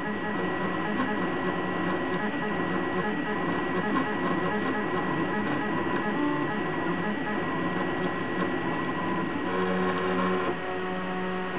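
Prusa i3 3D printer's stepper motors running through a print: a busy mix of motor whines that change pitch with each move, settling into steadier held tones near the end.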